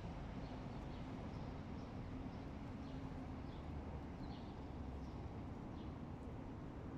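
Short, faint high bird chirps scattered every second or so over a steady low outdoor rumble.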